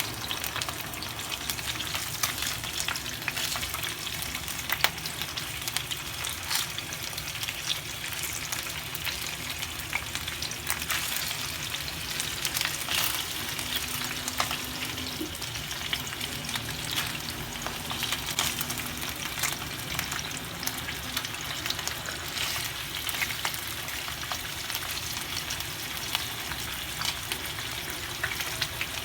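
Food frying in hot oil in a pan: a steady sizzle with frequent sharp crackles and pops.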